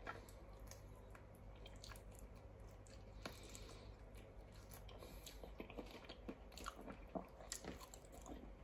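Faint chewing and biting: a person eating, with soft mouth smacks and small clicks scattered through, more of them in the second half.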